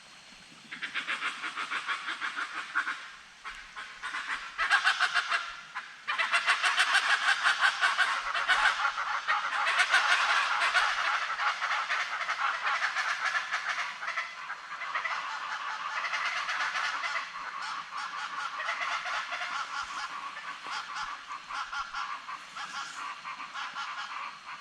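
A flock of birds calling together in a loud, dense chorus of fast, repeated calls. It starts about a second in, is loudest in the middle stretch and eases off slightly near the end.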